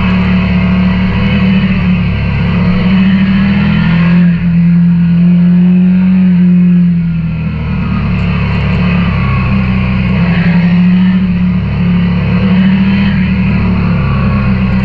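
KTM 890 Duke R parallel-twin engine running under way, heard onboard, its pitch holding fairly steady with brief shifts about four seconds in and again near eight seconds.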